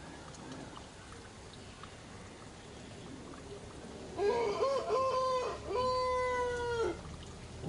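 Baby macaque crying: three high, drawn-out calls starting about four seconds in, the first wavering and the last the longest.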